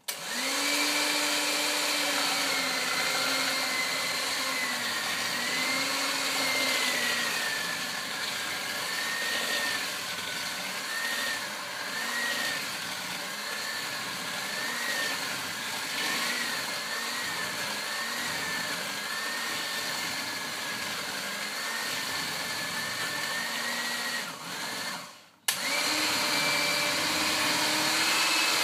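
Electric hand mixer beating egg yolks and sugar, its motor whining steadily with the pitch wavering as the wire beaters work through the thick mixture. Near the end it cuts out for about a second, then starts again with a click.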